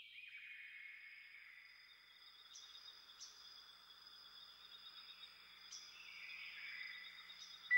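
Quiet tropical nature ambience fading in: steady high insect trills with a few short bird chirps. A whistling music tone cuts in at the very end.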